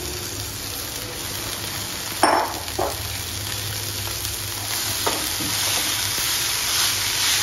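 Chopped spinach sizzling in a hot non-stick frying pan of butter, corn and onion while a wooden spatula stirs it, getting a little louder in the second half. Two knocks come a little after two seconds in.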